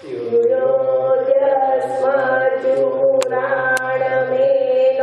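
Group of voices chanting together in long, steady held notes. Two short sharp clicks a little past three seconds, about half a second apart.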